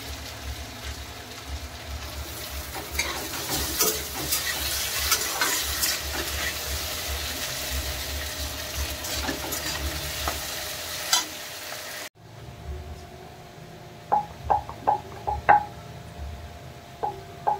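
Food frying and sizzling in a pan, with the scrape and clicks of a spatula stirring it. It cuts off suddenly about twelve seconds in, and a run of short ringing taps follows near the end.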